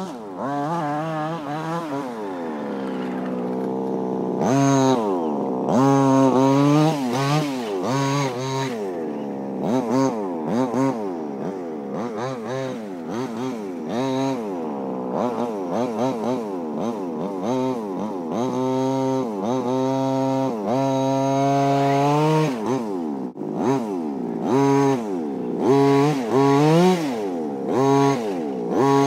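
Small two-stroke petrol engine of a 1:5-scale King Motor T2000 RC car with a dual-pipe exhaust, revving up and down again and again as it is driven. Quick throttle blips alternate with a few longer rises and falls in pitch.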